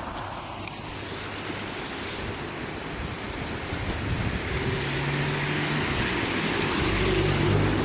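Steady rush of a high, swollen river with wind on the microphone; from about halfway through a motor vehicle's engine hum joins in and grows louder near the end.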